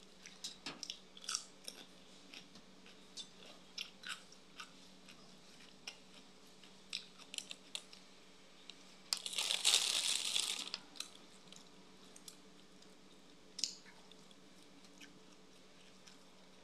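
A person chewing and crunching food close to the microphone, with scattered small crunches and mouth clicks. About nine seconds in comes a louder hissing burst lasting about a second and a half.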